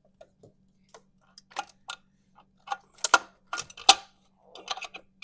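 Irregular sharp metallic clicks and knocks, about a dozen, loudest in the second half: a GMC 4.3L Vortec V6 distributor being worked down into its bore, its shaft not yet catching the oil pump drive.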